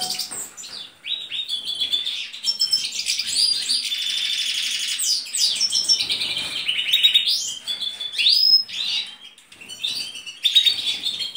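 European goldfinch singing, a fast twittering song of chirps and trills with a longer rapid trill in the middle and brief pauses about a second in and near the end.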